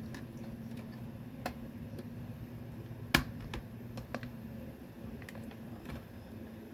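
Scattered light plastic clicks and taps from a toy M416 gun being handled, with one sharp, loud click about three seconds in, over a low steady hum.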